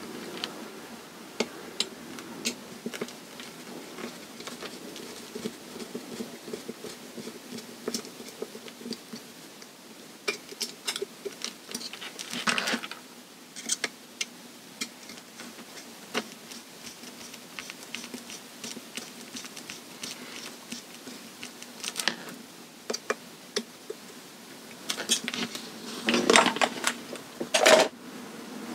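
Scattered small clicks and taps of metal hand tools and plastic connectors being handled while bullet connectors are fitted to an RC speed controller's wires, with a few brief rustles.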